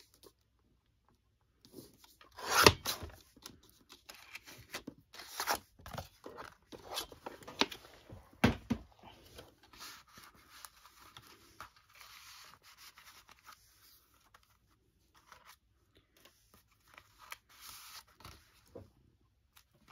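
Paper being trimmed and handled at a craft table: irregular rustling and scraping, with a few sharp knocks, the loudest about two and a half seconds in.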